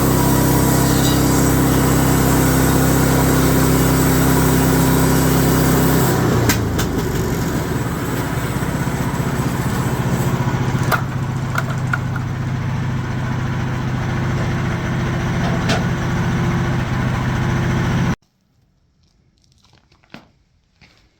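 Portable sawmill's gasoline engine running steadily; about six seconds in its tone changes and turns rougher, with a few sharp clicks. It cuts off abruptly near the end.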